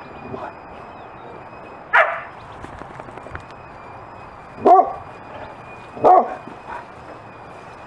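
Large husky-type dog giving three short, sharp barks a couple of seconds apart, demanding that the ball be thrown.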